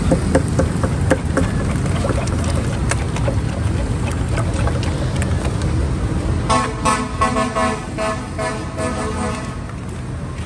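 Street traffic noise with a vehicle horn tooting in a rapid series of beeps for about three seconds past the middle.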